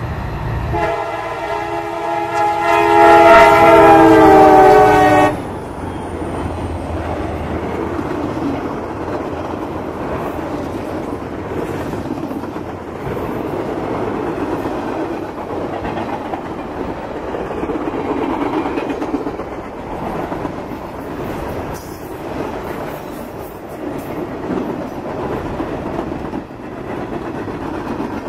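CSX work train's diesel locomotive sounding its multi-note horn in one long blast of about four seconds, getting louder partway through. Its cars then pass with a steady rolling rumble of steel wheels on the rails.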